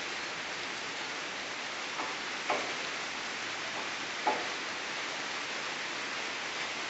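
Light tropical rain falling steadily. A few sharper single drops land close by, about two, two and a half and four seconds in.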